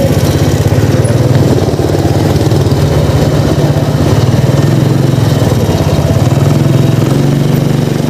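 Motorcycle engine running steadily at low road speed, a constant fast-pulsing hum in slow street traffic.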